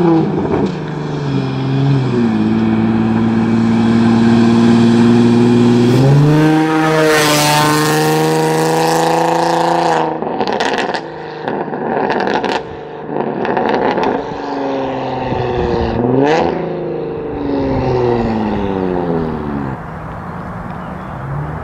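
Infiniti G35's 3.5-litre V6 through a custom exhaust of resonated test pipes, an X-pipe and dual straight pipes, revving up and holding, then letting off with a rapid string of pops and crackles about ten seconds in. The revs rise and fall a couple more times before settling near the end.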